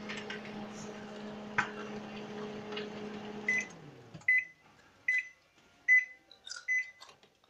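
Microwave oven running with a steady hum, cooking bacon; about three and a half seconds in the hum winds down as the cycle ends, followed by five short high beeps under a second apart signalling the end of the timer.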